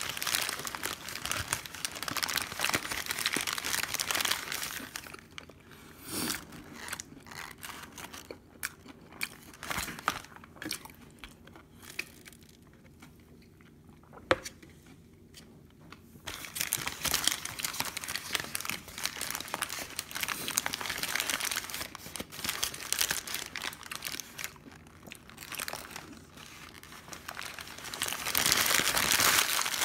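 Paper burger wrapper crinkling and rustling as it is handled, in several loud stretches with a quieter lull near the middle that holds a single sharp click.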